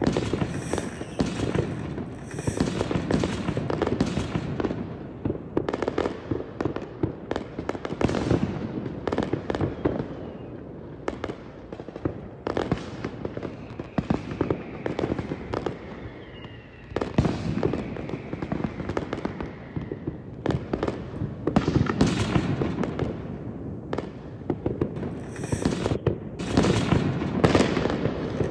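Aerial fireworks display: shells bursting in quick succession, a near-continuous run of booms and crackles that eases briefly just past halfway and then picks up again.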